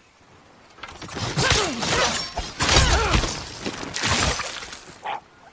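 Spear combat sound effects: a run of loud crashing clashes and impacts, about four in all. The first two carry a wavering, ringing tone. A shorter hit comes near the end.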